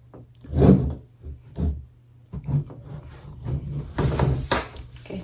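Hard plastic snap-on shell being pressed and clipped onto a MacBook Pro 16-inch, with the laptop handled and turned over. A few sharp plastic knocks in the first two seconds, then a busier run of clicks and rubbing in the second half.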